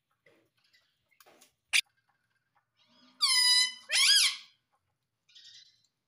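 Indian ringneck parrot giving two loud, shrill calls in quick succession, the first dropping in pitch and then holding, the second sweeping upward. A single sharp tap comes about a second before them.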